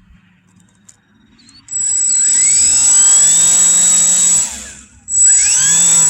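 Electric motor and propeller of a 1.3 m Valiant RC airplane run up twice on the ground, a test run to check that the prop is still straight after a hard landing. The first burst rises in pitch with a steady high whine over it, runs for about three seconds and winds down. A second, shorter burst follows near the end.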